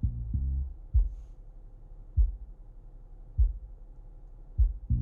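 Subwoofer of a 2012 Acura TL's ELS surround sound system playing only the low bass part of a demo track, heard inside the car cabin. A bass drum thumps about once every 1.2 seconds, and short bass guitar phrases come at the start and again near the end.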